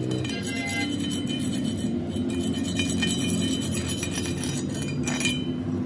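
A steady low engine drone with a few faint metallic clinks.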